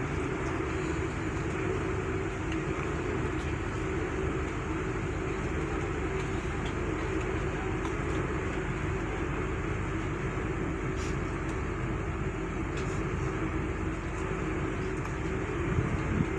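A large engine or machine running steadily with a constant droning hum, unchanged throughout.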